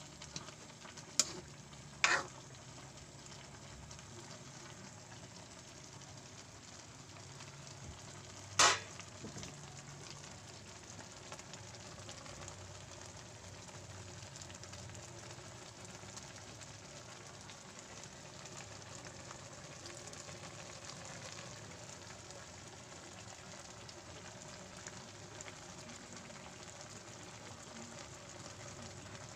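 Pancit noodles and cabbage frying in a wok, a steady sizzle. Three short, loud clatters stand out, about one, two and eight and a half seconds in.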